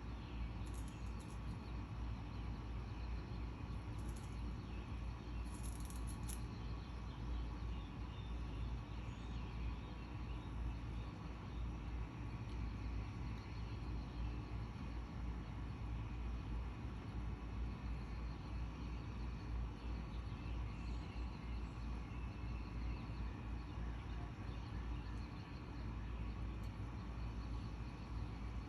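Outdoor background noise: a steady low rumble and hiss, with a few short high buzzes in the first six seconds or so.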